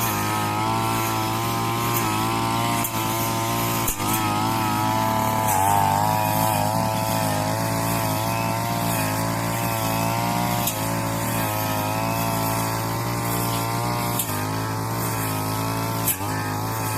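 Two-stroke brush cutter running continuously, its engine note rising and dipping.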